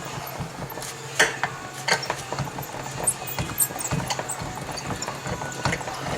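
Irregular metallic clicks and clanks of hand tools working on metal car parts, the sharpest about a second in, over a steady low hum.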